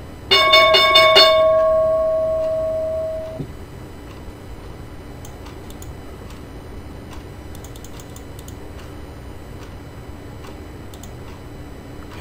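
Bell rung rapidly for about a second, then one tone ringing on and fading out over about two seconds: an opening-bell alert marking the stock market's 9:30 open.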